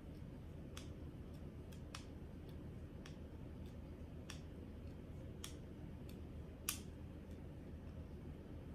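Faint, irregular light clicks, roughly one a second with the sharpest a little under seven seconds in, over a low steady hum: strokes of a KME guided knife sharpener finishing a paring knife's edge at 160,000 grit (0.1 micron).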